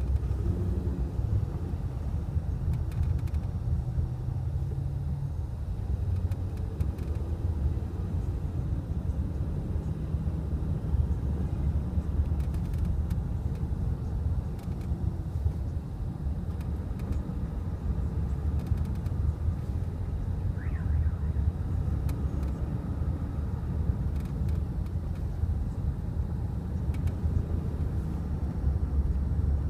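Steady road and drivetrain rumble inside a moving 2011 Honda Pilot's cabin, with a few faint scattered clicks.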